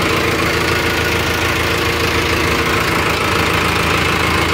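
Gromax Hindustan 60 tractor's diesel engine idling steadily and evenly, its speed holding without any hunting.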